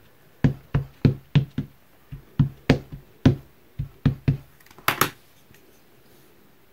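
Rubber stamp being tapped repeatedly onto an ink pad and pressed down on paper: a run of quick, uneven knocks, about two or three a second, the loudest a close pair near the end, after which the knocking stops about five seconds in.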